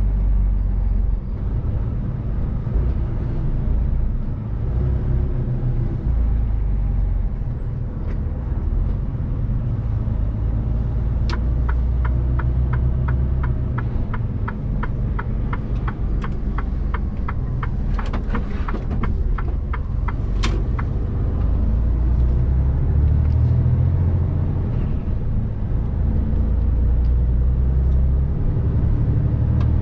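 Mercedes-Benz Actros truck's diesel engine running with a steady low rumble, heard from inside the cab. Through the middle of the stretch a turn-signal indicator ticks evenly, a little over two clicks a second, then stops.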